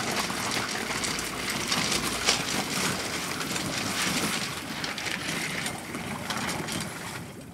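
Gravel crunching and water splashing as a boat trailer carrying an inflatable rescue boat is pushed down a slipway by people wading into shallow water; a steady noisy rush with many small crackles and clicks.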